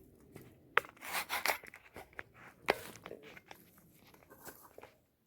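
Scattered rustling and crunching with a few sharp clicks, like footsteps and gear being handled in dry brush; it cuts off to dead silence near the end.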